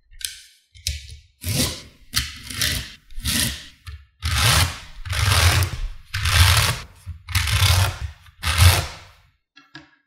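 Stiff paper card sliding and scraping against a sheet of small magnetic balls, in repeated rubbing strokes about once a second, each with a dull low thud.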